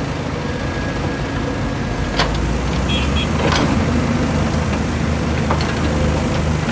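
Heavy machine's engine running steadily with a low drone, with a few sharp knocks about two, three and a half, and five and a half seconds in.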